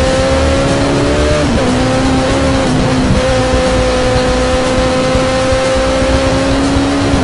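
Turbocharged Suzuki Hayabusa inline-four with a GSX-R exhaust pulling hard at high speed, heard onboard. The engine note climbs, drops sharply at an upshift about a second and a half in, then pulls steadily in the next gear, with another shift right at the end. Heavy wind rumble on the microphone throughout.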